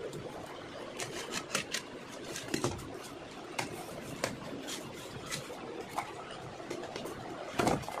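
Cardboard shipping box being torn open by hand: a scatter of sharp crackles and clicks from the cardboard and packing tape, with a louder rip of cardboard near the end.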